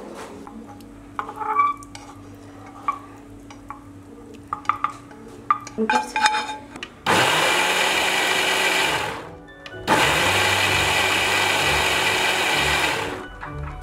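Electric mixer-grinder running in two bursts, about two seconds and then about three seconds, with a short stop between. Before it, light scattered clicks and knocks.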